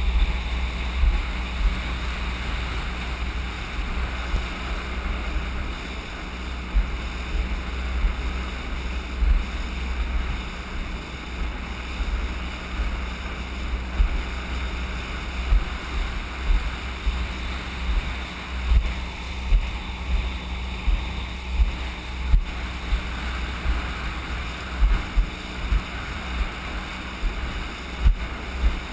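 Wind buffeting the microphone of an inflatable boat under way at sea, in irregular gusts, over a steady hiss of water rushing past the hull, with a faint steady low hum underneath.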